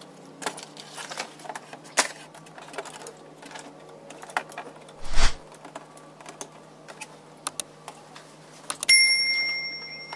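Light clicks and knocks of a TV power supply board being handled and fitted onto the set's sheet-metal back chassis, with a heavier thump about five seconds in. Near the end something metal is struck and rings briefly, fading over about a second.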